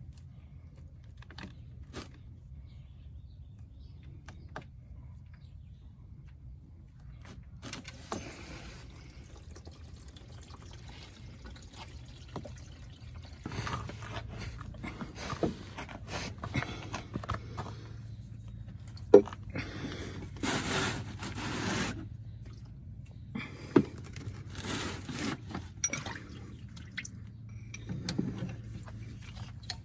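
Hand tools scraping and clinking against metal parts under the car during an oil change: a few sparse clicks at first, then frequent irregular scrapes and sharp clinks from about halfway in.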